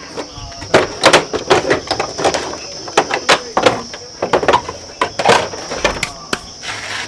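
Irregular sharp clicks and knocks of plastic body panels, screws and tools being worked by hand on a motorbike's front fairing, about two or three a second. A steady high-pitched whine runs underneath.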